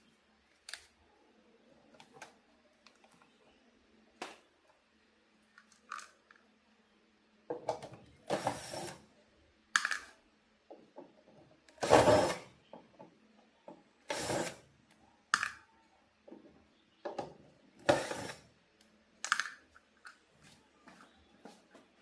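Hand tools and hard parts being handled at a workbench: irregular clicks and knocks, with several louder rattling scrapes.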